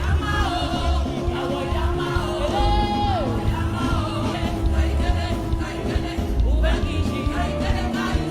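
Live gospel music: singing over a band with a strong, pulsing bass and a long held note underneath.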